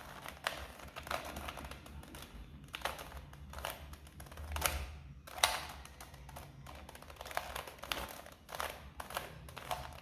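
Rubik's cube layers being turned by hand in quick repeated sequences: plastic clicking and clattering, several turns a second in irregular bursts. The same corner-insertion move is being repeated to orient a white corner piece.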